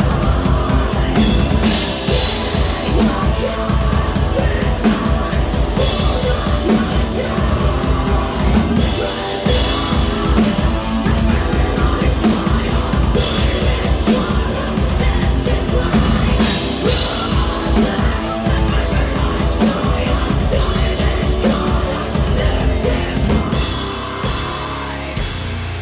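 Metal band playing loud, fast heavy metal: rapid drumming with cymbal crashes every few seconds under electric guitars, with vocals.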